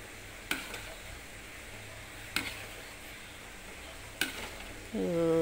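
Spatula stirring a thick, sticky wajik mixture of glutinous rice, palm sugar and coconut milk cooking in a pan, over a low steady hiss. The spatula knocks sharply against the pan three times, about half a second, two and a half seconds and four seconds in.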